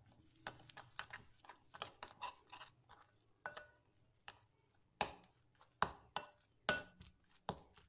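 A metal spoon stirring a thick yogurt-and-spice paste in a glass bowl, clinking and scraping against the glass in quick, irregular ticks, with the louder clinks in the second half.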